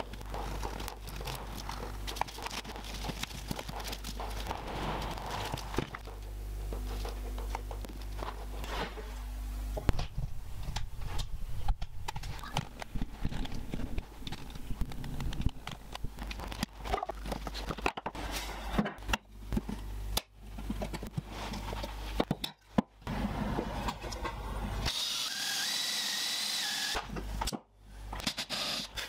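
Workshop assembly sounds: carved wooden parts being handled, knocked and fitted together, with scattered clicks and knocks. A cordless drill runs steadily for about two seconds near the end.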